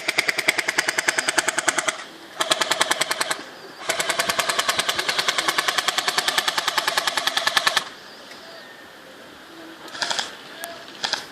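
Airsoft gun firing on full auto: three rapid bursts of evenly spaced shots, the last about four seconds long, then two brief bursts near the end.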